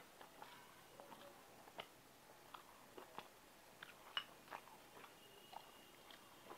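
Faint chewing of a mouthful of rice and banana-flower curry, close on a clip-on microphone: irregular small clicks and crackles, with one sharper click about four seconds in.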